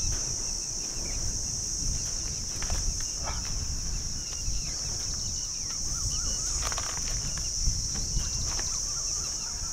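Steady, high-pitched chorus of insects shrilling in the trees and scrub, with wind rumbling on the microphone and a few faint knocks.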